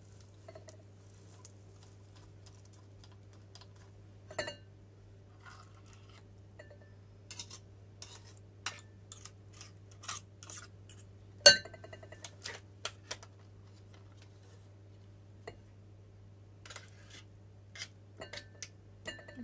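A metal potato ricer and a fork clinking and tapping against a glass mixing bowl as banana is pressed through and scraped off. Scattered light clicks, with one sharp clink about eleven seconds in, over a steady low hum.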